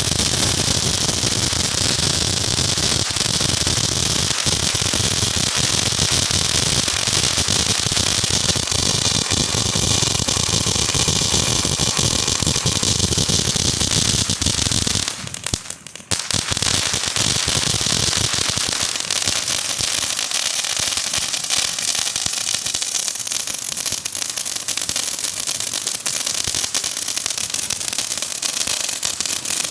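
TNT 'Justice' consumer firework going off in a long, dense run of crackling and hissing, with a brief drop about halfway through before it carries on.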